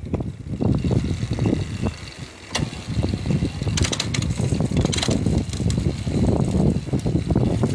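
Yamaha PAS electric-assist bicycle drive unit making an abnormal noise: an uneven low rumble with a sharp click a few seconds in and a short run of clicks soon after. It is the sign of water having got into the drive unit and rusted its internals, as the repair seemed to show.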